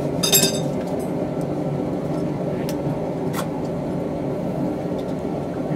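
A steady mechanical hum in a blacksmith's shop, with a single ringing metal strike about a quarter second in and a few light taps afterwards.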